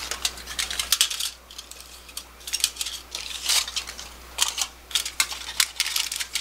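Pleated foil and paper baking cups crinkling in short bursts as they are pulled apart and pressed into a plastic lunch box.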